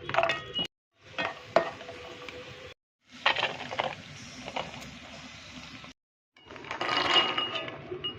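Cashews and a spoon clinking and scraping in a pan while roasting, heard in four short clips that each cut off abruptly, with sharp clinks over a steady rustle.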